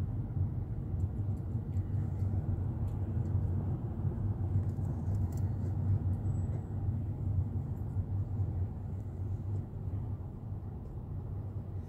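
Steady low rumble of a moving car heard inside the cabin: road and engine noise at cruising speed.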